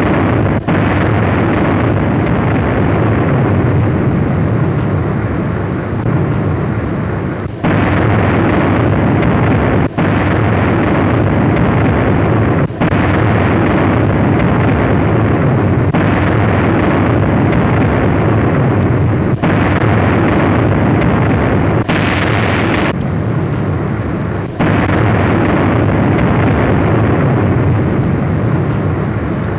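Battleship heavy guns firing at sea on an old newsreel soundtrack: loud, continuous blast noise with no separate shots standing out, broken by several abrupt short gaps where the sound cuts.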